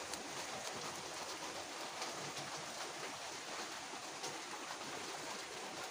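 Steady hiss of falling rain, with a few faint scattered ticks of drops.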